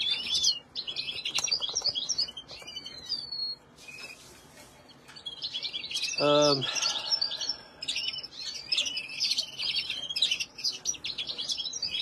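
Many caged songbirds, canaries and finches, chirping and twittering together in quick overlapping calls, with a brief lull about four seconds in. A man's voice makes one short sound about halfway through.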